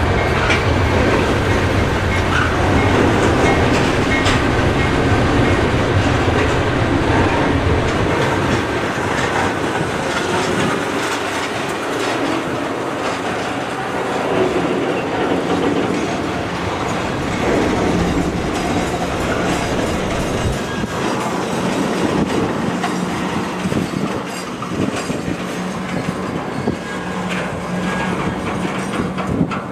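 Double-stack intermodal freight train's well cars rolling past close by: steady rumble of steel wheels on rail with clickety-clack over the joints and some brief wheel squeal. A heavy low rumble in the first ten seconds or so drops away, leaving a lighter rolling clatter.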